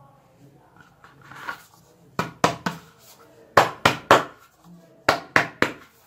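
Sharp knocks in three quick groups of three, each knock about a quarter second after the last and ringing out briefly.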